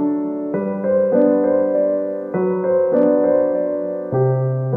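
Background music: a piano-like keyboard playing slow, held notes and chords that change every second or so.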